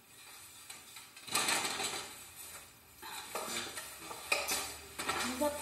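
A paintbrush scratching paint onto a surface in three short, scratchy strokes.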